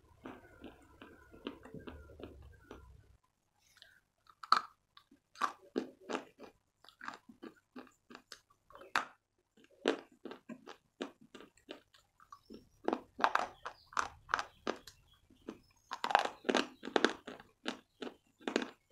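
Chalk being chewed by a person close to the microphone: a run of dry, crisp crunches, about two or three a second. There is one sharp crunch about four and a half seconds in, and the crunches grow dense and loud near the end.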